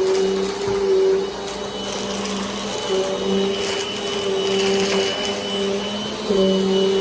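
Bissell compact vacuum cleaner running, with a steady motor hum and a high whine. The hum drops slightly about a second in and comes back up near the end, with occasional faint clicks and crackles of mess, including erasers, being picked up.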